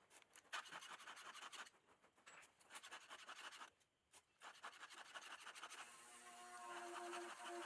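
A hand file rasping across the cutting teeth of a Husqvarna 550 XP chainsaw chain, a quick series of faint scraping strokes with two short pauses as the chain is sharpened. About six seconds in, faint music with steady held notes comes in.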